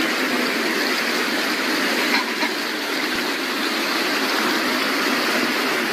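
Floodwater rushing in a steady, loud torrent.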